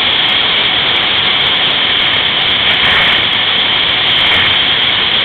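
Yamaha Apex snowmobile's four-stroke engine running steadily at speed along a trail, mixed with a loud, even rush of wind over the microphone.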